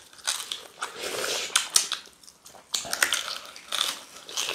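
Close wet chewing, lip smacks and slurps of people eating ogbono soup with meat and potato fufu by hand, coming in irregular short bursts with a brief lull near the middle.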